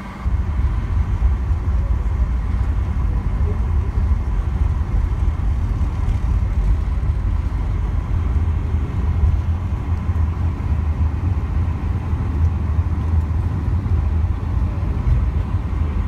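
Jet airliner cabin noise on the takeoff roll: a loud, steady low rumble from the engines at takeoff power as the plane speeds down the runway and lifts off. It comes in suddenly just after the start.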